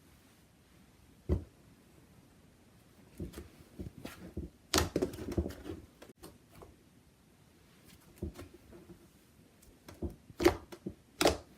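Hands playing with a fluffy cloud slime: scattered squishes, small pops and sharp snaps, busiest around the middle, with a few louder snaps near the end.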